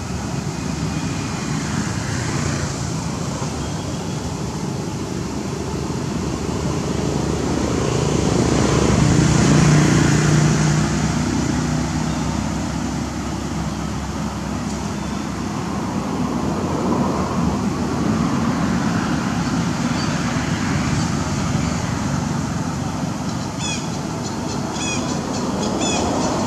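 Steady rumble of road traffic, swelling as a vehicle passes about nine to eleven seconds in and then fading. Near the end, short high chirps repeat several times.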